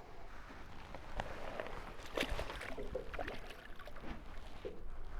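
Wind rumbling on the microphone and water slopping against a small boat's hull, with a few sharp knocks and splashes, the loudest a little after two seconds in.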